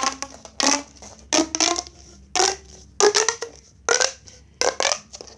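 Plastic pop tube fidget toy being stretched and pushed back together, giving a quick series of short ribbed-plastic pops and creaks, some with a brief whistly pitch, about two a second.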